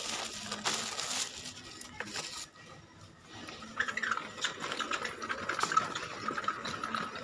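Plastic-wrapped noodle packets rustling, then a loaded wheeled shopping basket rattling and clicking steadily as it rolls along a tiled floor, starting about four seconds in.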